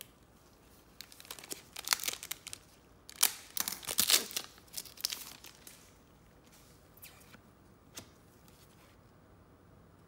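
A trading-card pack wrapper being ripped open and crinkled: a run of short tearing sounds lasting about four seconds, followed by a couple of faint ticks.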